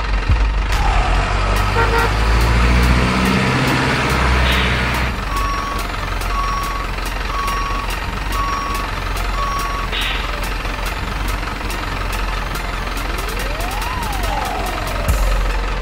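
Simulated truck sounds from an RC dump truck: a low engine rumble, a hiss about four seconds in, then five reversing beeps about one a second, followed by another hiss. Near the end a tone sweeps up and back down.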